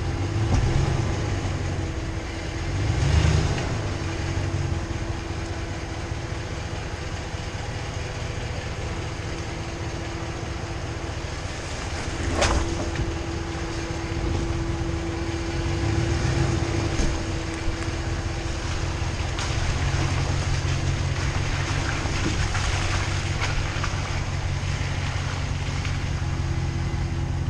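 Off-road vehicle's engine running low and steady as it crawls the trail, swelling a few times, with a single sharp knock about twelve seconds in.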